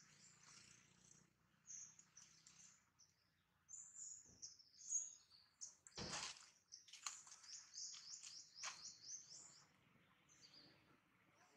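Faint birds chirping in the background, short high chirps coming in quick runs, with one sharp knock about six seconds in.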